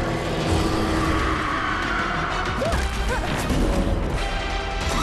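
Dramatic background music over a dense, steady rush of action sound effects, with a few short pitch swoops about halfway through.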